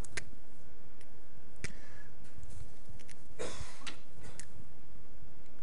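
A few faint, scattered clicks and taps over steady background hiss, with one short rustle about three and a half seconds in.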